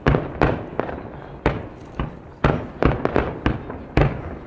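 Aerial firework shells bursting in quick succession, about eleven sharp bangs at irregular intervals of a third to half a second, each trailing off in echo.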